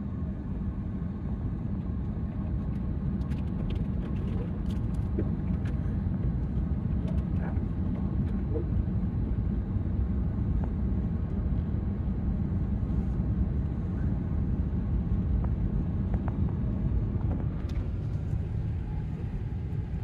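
Car creeping through floodwater at about walking pace: a steady low rumble of the engine and tyres moving through the water, with a few faint scattered clicks.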